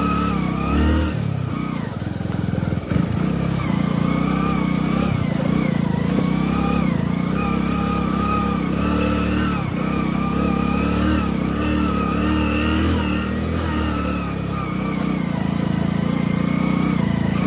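Motorcycle engine running while being ridden, its revs rising and falling gently and steadily.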